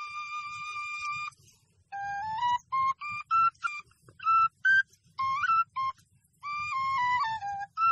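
A flute playing a simple melody as background music. A held note opens it, then a run of short notes steps upward with small gaps between them, and near the end a longer phrase steps down in pitch.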